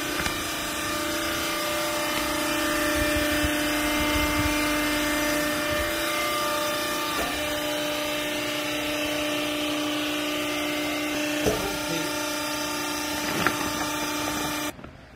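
Vertical hydraulic baler's electric motor and hydraulic pump running with a steady hum, with a couple of sharp knocks late on; the sound cuts off suddenly near the end.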